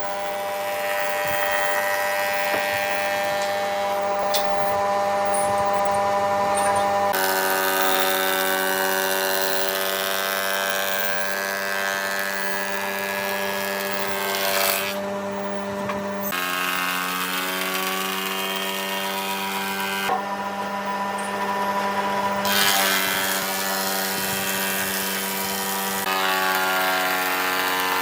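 Electric power tool running steadily on wood, a motor whine over a rushing noise. The pitch of the whine jumps suddenly several times.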